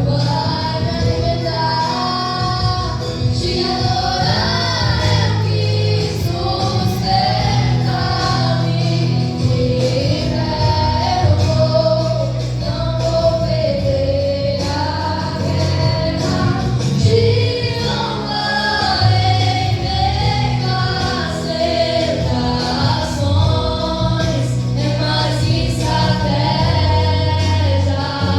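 Two female voices singing a Christian worship song in Portuguese over an instrumental accompaniment with sustained bass notes.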